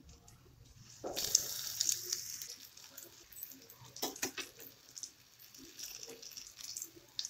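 Battered capsicum rings deep-frying in hot oil: a loud sizzle starts about a second in as they go into the oil, then settles into a steady crackling fry. A few sharp clicks around four seconds in, from the steel slotted spatula against the pan.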